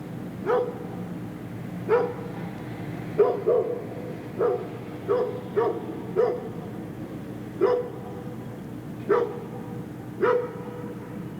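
Large dogs barking in the distance, about eleven single barks at uneven intervals, some in quick pairs, over a steady low hum.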